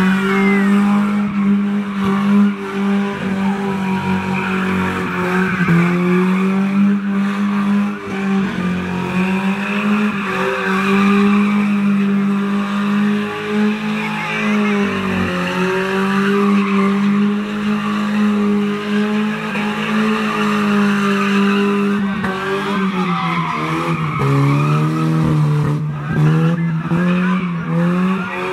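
Hatchback car spinning donuts: its engine is held at steady revs with brief dips and recoveries a few times, under a continuous squeal of spinning tyres.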